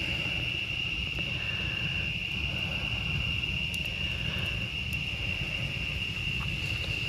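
Crickets trilling in one steady, unbroken high-pitched chorus, over a low steady rumble.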